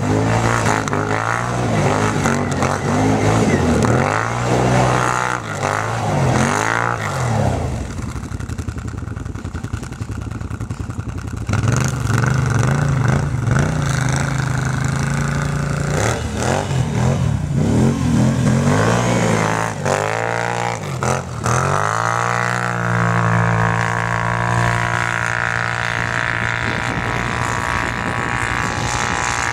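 ATV engine revving hard as the quad spins its wheels and slides through deep snow. The revs rise and fall again and again, then hold steady and high for stretches, longest near the end.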